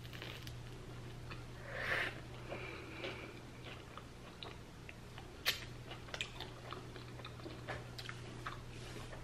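A person chewing a mouthful of toast topped with vegan tuna salad and tomato: soft, faint mouth clicks and smacks, with one sharper click about five and a half seconds in. A low steady hum sits underneath.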